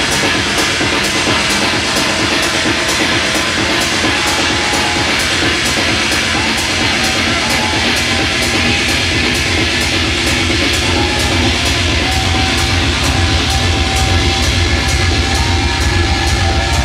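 Techno DJ set playing loud over a club sound system: a driving beat with a sharp hi-hat tick about twice a second. A heavier bass swells in about twelve seconds in.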